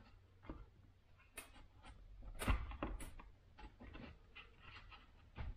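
Faint, scattered clicks and scrapes of a screwdriver and plastic parts as the side plate on a stripped-down Stihl MS500i chainsaw is worked loose, with a few sharper clicks in the middle.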